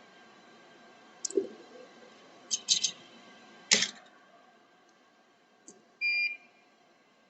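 A few sharp clicks and knocks of tools on the bench, then one short electronic beep near the end, of the kind a soldering or rework station gives at a button press.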